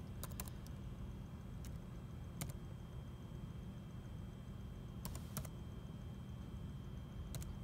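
Laptop keyboard keys pressed one at a time as a Wi-Fi password is typed: a few quick keystrokes at the start, then single ones with long gaps between, over a steady low hum.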